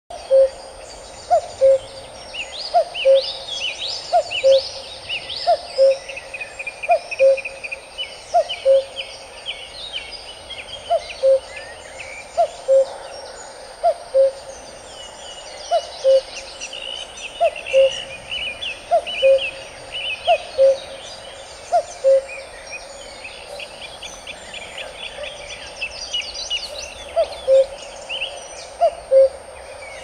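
A cuckoo calling its two-note cuck-oo, the second note lower than the first, repeated about every second and a half with a few short pauses. Other songbirds chirp and trill throughout at a much higher pitch.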